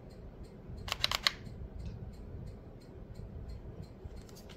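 A quick run of about four light plastic clicks about a second in, with fainter clicks near the end. They come from the trigger of an Osprey Nightingale electric foam-dart blaster being tapped to try to change its fire mode.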